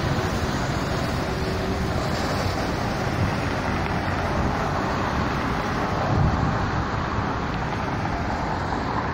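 Steady rush of wind on the microphone over city street traffic, heard while moving along the road, with a slightly louder low swell about six seconds in.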